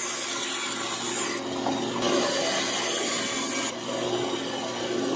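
Bandsaw running with a steady hum while its blade cuts into a small wooden block. The high hiss of the cut drops away about three and a half seconds in, and the saw keeps running.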